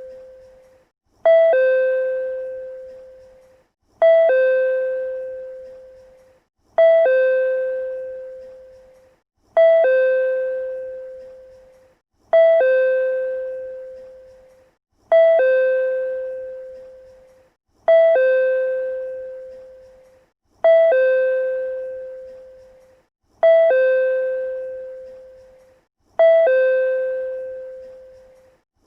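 PRC-type chime sounding a two-note ding-dong over and over, about every three seconds. Each time a short higher note is followed by a longer lower note that rings and fades.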